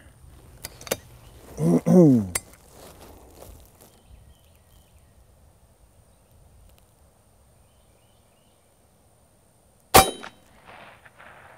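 A pre-charged pneumatic AirForce Texan .257 air rifle firing a single shot near the end, one sharp, short report. Before it come a few light handling clicks.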